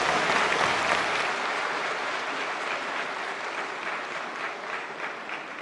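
Audience applauding, a dense clapping that slowly dies down toward the end.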